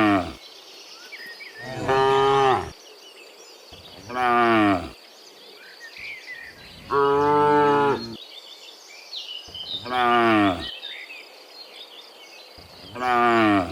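Cattle mooing: long, loud moos come one after another every two to three seconds, each about a second long, several sliding down in pitch. Faint high chirping can be heard between the calls.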